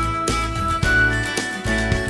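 Background music with held notes and a beat.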